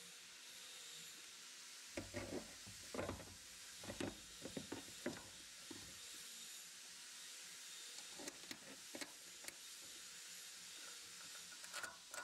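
Faint, irregular knocks and clunks of a car's metal wiper cowl panel being handled and set into place by hand, over a steady low hiss. The knocks cluster in the first half, with a few more later and near the end.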